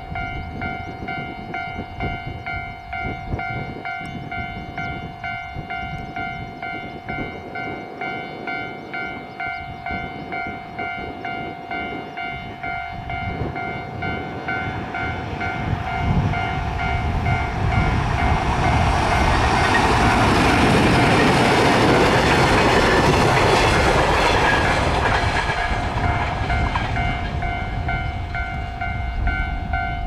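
Japanese level-crossing warning bell ringing with a steady, repeating electronic ding. A freight train hauled by an electric locomotive passes the crossing: its running and wheel noise grows from about halfway through, is loudest about two-thirds of the way in, then fades.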